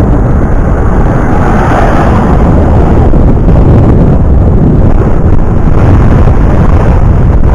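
Wind buffeting the action camera's microphone while cycling: a loud, steady low rumble.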